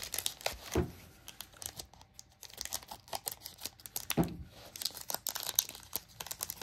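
Foil Pokémon card booster pack crinkling in the hands and being torn open, a run of sharp crackles and rips.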